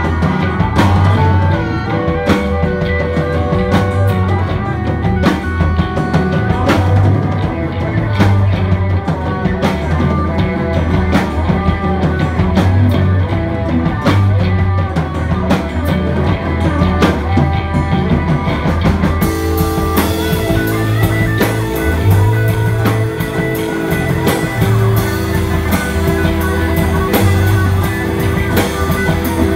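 Live rock band with banjo playing an instrumental passage: electric bass, banjo, electric guitar and drum kit. About two-thirds of the way in the sound turns brighter and held notes come in over the rhythm.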